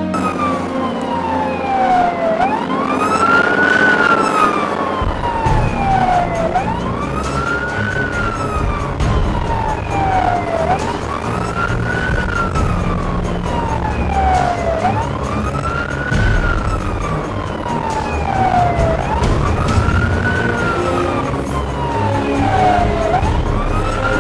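Fire engine's wail siren, each cycle rising quickly over about a second and a half and falling slowly back, repeating about every four seconds. The truck's engine and road noise run underneath.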